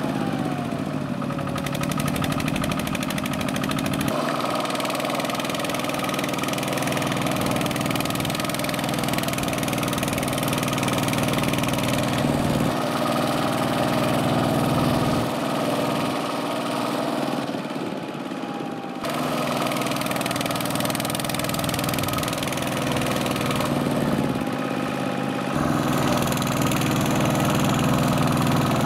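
Single-cylinder diesel engine of a two-wheel walking tractor running steadily under load as it hauls a loaded trailer through mud. The engine note changes abruptly several times.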